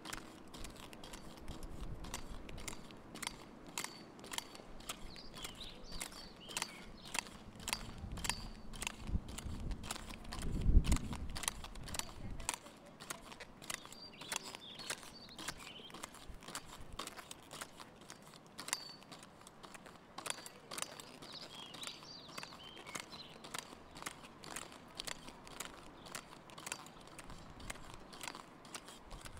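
Pogo stick bouncing on asphalt: a steady run of sharp clicks and knocks, about two a second, each one the tip striking the ground. A brief low rumble swells and fades about a third of the way through.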